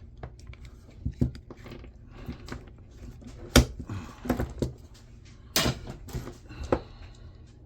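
Scattered clicks and knocks of hand tools and scrap parts being handled while a jump starter pack is dismantled, with one short scraping rasp a little past halfway.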